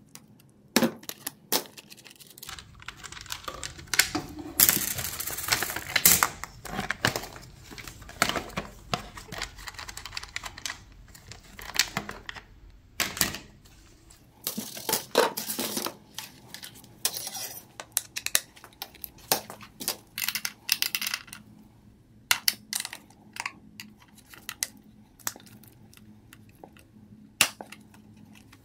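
Irregular metallic clicks and clinks of a 10 mm wrench working bolts loose, with small metal parts being handled, in scattered quick strokes and short busy spells.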